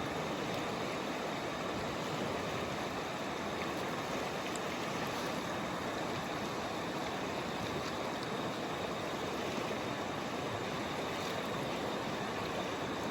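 Steady rush of river water flowing over rocks, an even hiss with no change throughout.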